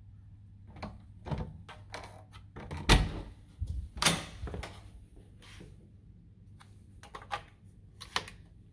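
Hotel room door being unlocked and opened: a run of lock and handle clicks and knocks, with heavy thunks about three and four seconds in.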